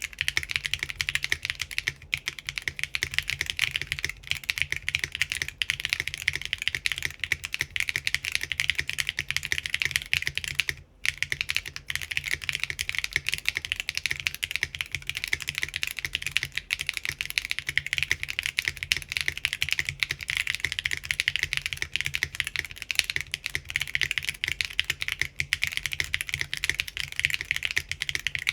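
Continuous fast typing on a Typface Kafka mechanical keyboard with Geon RAW HE magnetic switches, ABS doubleshot keycaps and an aluminium plate in plate gasket mount, with a brief pause about 11 seconds in.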